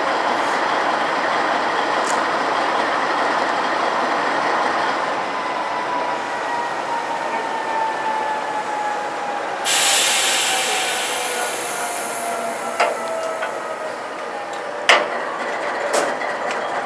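Freight train rolling on steel rails with a steady rumble of wheels and a thin squeal that slowly falls in pitch. About ten seconds in, a sudden burst of hiss lasts a couple of seconds. Sharp clacks come near the end.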